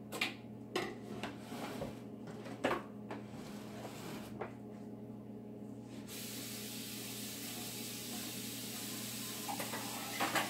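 Dishes and utensils knocking and clinking in a kitchen sink, then about six seconds in a tap is turned on and water runs steadily with a hiss.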